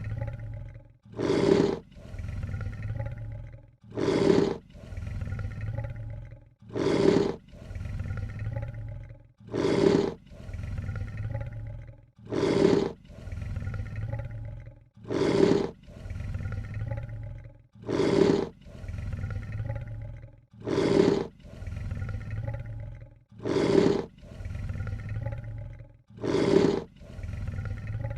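Lion hissing: a short, loud hiss followed by a quieter, lower tail. It repeats at an even rhythm, about every three seconds, ten times.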